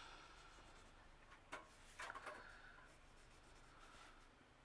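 Faint scratching of a pencil sketching on paper, in short strokes, with a small tap about one and a half seconds in.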